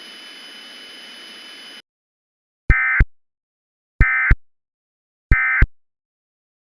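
A faint broadcast hiss cuts off, then three short warbling data bursts of the Emergency Alert System's SAME digital code sound about 1.3 seconds apart. This is the end-of-message signal that closes the alert.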